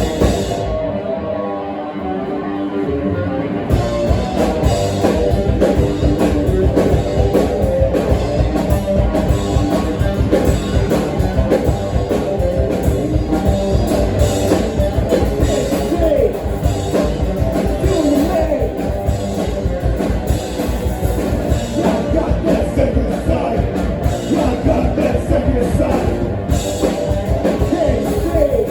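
Live rock band playing loud: a guitar carries the first few seconds on its own, then drums and bass come back in about four seconds in and the full band plays on.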